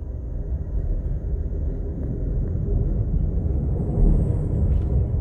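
Amtrak passenger train running at speed, heard from inside a passenger car: a steady low rumble of wheels on the rails. About four seconds in it grows a little louder, with a faint hiss, as the train rolls onto a steel truss bridge.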